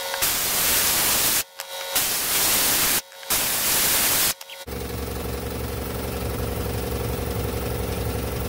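Pneumatic die grinder with a small sanding disc hissing in three runs of about a second each, with short breaks, as it chamfers the edges of a wooden board. About four and a half seconds in the grinder stops and a steady low hum of the air compressor running carries on.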